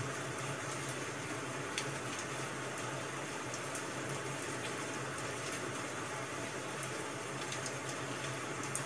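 Steady rain hiss, with a few faint sharp ticks scattered through it.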